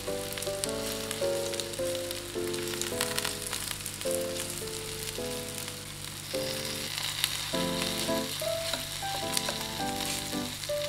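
Coated chicken thigh pieces sizzling as they shallow-fry in a pan, the sizzle getting louder about six seconds in. A light background melody plays throughout.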